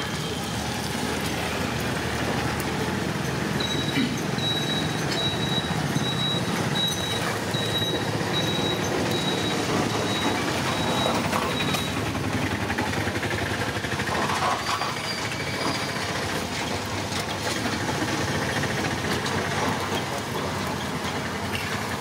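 Steady street and traffic noise. A run of short high beeps, a bit under two a second, starts a few seconds in and stops about halfway through.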